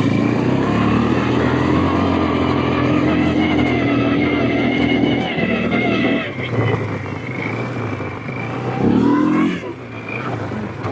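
Side-by-side UTV engine running under way at steady revs. It eases off about six seconds in, then revs up briefly near nine seconds before dropping back.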